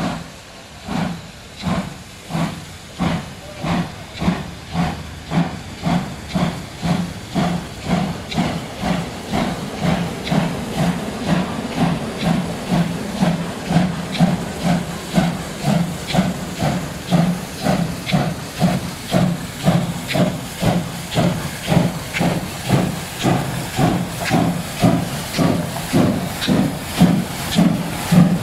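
DR class 52 two-cylinder 2-10-0 steam locomotive 52 8047 pulling away slowly: exhaust chuffs, about one a second at first and quickening to about two a second, over the hiss of steam blowing from its open cylinder drain cocks.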